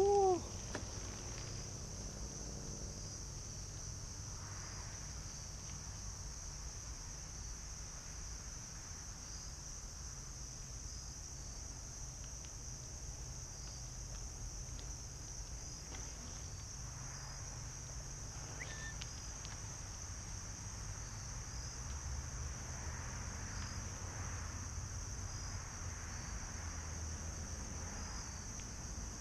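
Evening insect chorus: a steady, high-pitched drone that does not break or change.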